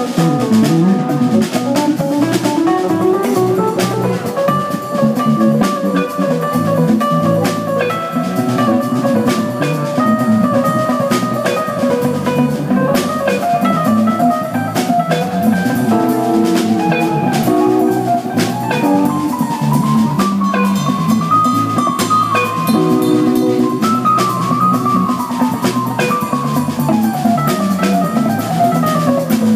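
A live band playing with a drum kit, electric bass, electric guitar and keyboard, a steady beat under a melodic line that climbs and falls.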